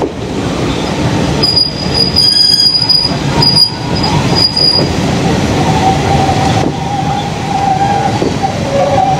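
Railway carriage wheels rolling slowly over the track and squealing on a curve. A high squeal comes and goes four times in the first half, then a lower, steadier squeal takes over for the last few seconds.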